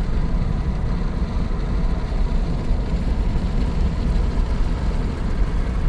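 Steady low rumble of a vehicle driving along a highway: engine and road noise at cruising speed.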